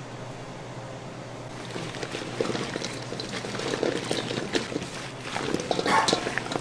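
Liquid pouring and splashing amid a clatter of short clicks and knocks, typical of kitchen work; it starts about a second and a half in and is loudest near the end.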